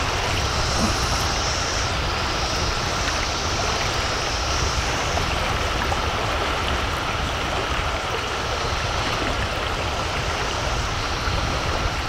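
Shallow river rushing steadily over rocks in a riffle. Behind it a steady high drone runs from the trees: the chorus of 17-year periodical cicadas in their emergence.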